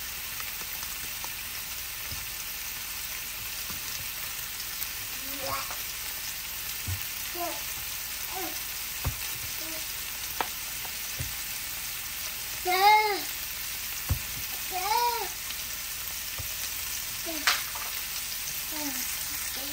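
Meatballs sizzling steadily in a non-stick frying pan, searing in the fat rendering from the meat with no oil added. Several short high-pitched calls sound in the background, the loudest about thirteen and fifteen seconds in, along with a few faint clicks.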